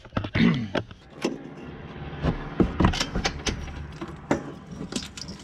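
Scattered clicks and knocks of a carburetor and its hoses being handled and fitted against an ATV's engine and frame, over a steady low hum.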